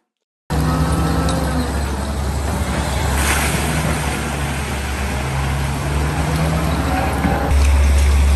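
A motor vehicle's engine running steadily with a low rumble and road noise, getting louder near the end.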